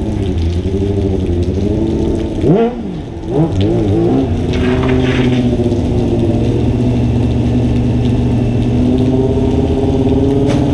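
A vehicle engine under way: its note rises and drops a couple of times about two to four seconds in, as with acceleration and gear changes, then holds a steady cruising pitch.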